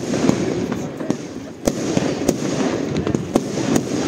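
Fireworks display: a continuous crackle with a rapid string of sharp bangs, about two or three a second, the loudest a little under two seconds in.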